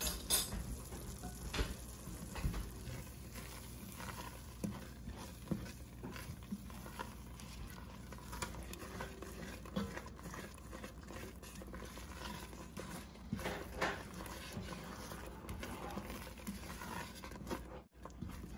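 Wooden spoon stirring a thick, simmering berbere-and-onion sauce in an enamelled cast-iron pot: soft, irregular scrapes and clicks against the pot. The sauce is stirred to keep it from sticking and burning on the bottom.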